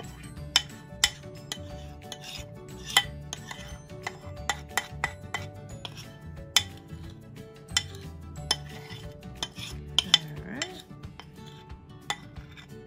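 Metal spoon scraping and knocking against a bowl while thick brownie batter is spooned out, giving a series of sharp, irregular clinks.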